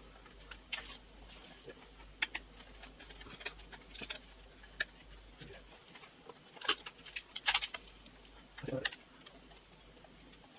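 Scattered clicks, taps and brief rustles of hands handling a computer monitor's stand and its packaging, with one duller knock near the end.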